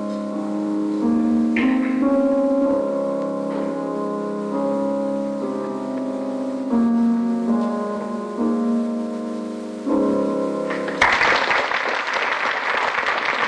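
Classical piano music playing, then the audience breaks into applause near the end as the music stops.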